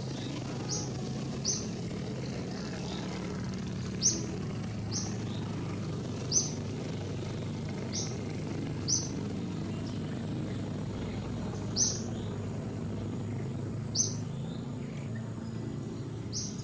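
Short, sharp, high-pitched bird chirps, one every one to three seconds, over a steady low hum of background noise.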